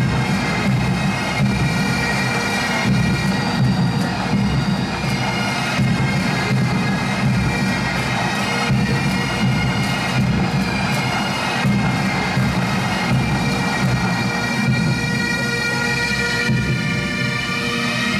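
Massed pipe bands playing: Great Highland bagpipes with their steady drones under the chanter melody, backed by snare and bass drums.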